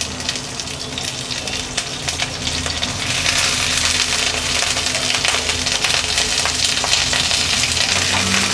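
Cauliflower florets sizzling in hot oil in a nonstick pan as they are dropped in one by one for shallow frying, with small taps as they land; the sizzle grows louder about three seconds in as more florets go in.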